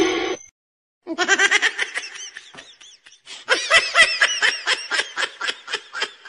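A person laughing in quick, repeated ha-ha bursts, in two long runs: the first starts about a second in, the second, louder one about three and a half seconds in and trailing off near the end.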